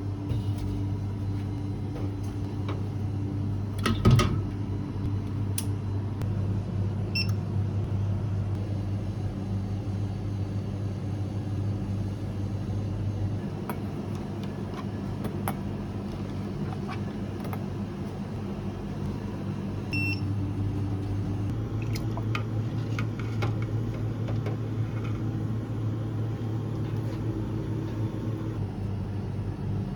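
Steady low electrical hum of kitchen equipment, with a single sharp knock about four seconds in and two short high beeps, one near the start and one about two-thirds through.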